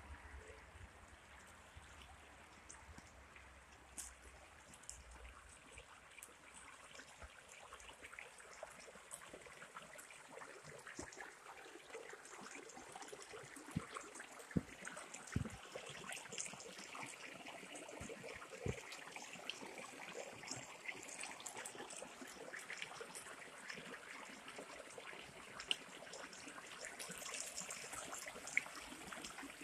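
Faint trickling and gurgling of a small stream, with scattered sharp clicks throughout and a few low thumps in the middle.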